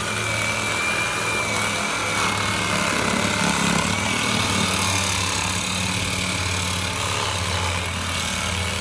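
Reciprocating saw (Sawzall) running steadily with a high whine as it cuts through PVC sewer pipe.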